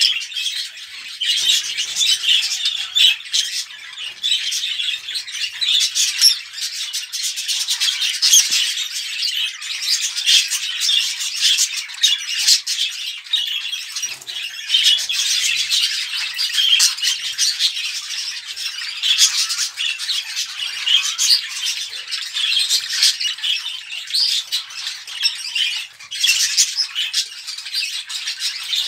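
Budgerigars chattering and warbling in a dense, unbroken stream of high chirps and squawks: the kind of budgie chatter played to bring the birds into breeding condition.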